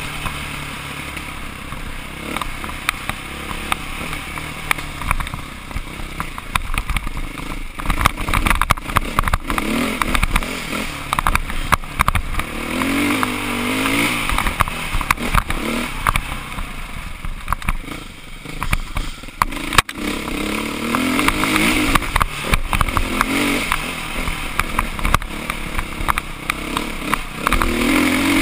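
Dirt bike engine running under the rider, its revs rising and falling repeatedly as the throttle is worked over a rough trail, with frequent clatter and knocks from the bike bouncing over stones.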